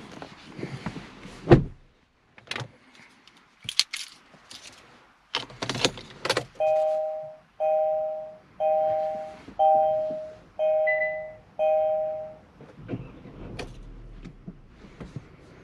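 Kia Ceed's interior warning chime sounding six times, a two-note electronic tone about once a second. Before it come scattered clicks and knocks of handling inside the car, the loudest a sharp click about a second and a half in.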